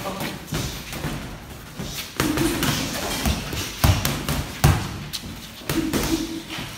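Boxing gloves thudding in an irregular series as punches land on gloves, arms and headgear during sparring. The two loudest thuds come about four seconds in, half a second apart.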